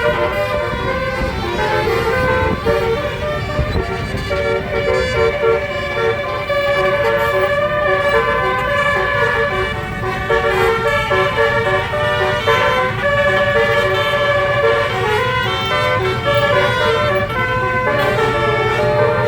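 Multi-note 'basuri' telolet bus horn, a 12-note horn set, playing a tune of stepped notes over the low rumble of the road.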